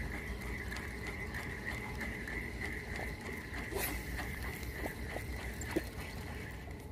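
Fishing reel being cranked to bring in a just-cast lure: a steady, gently pulsing whirr with faint ticks, over a low background rumble. The whirr stops near the end.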